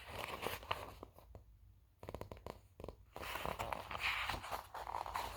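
Rustling and light clicks from a large picture book being handled, its pages moved as it is turned round to show the picture. The clicks are scattered in the first half, and a soft, steady rustle follows from about three seconds in.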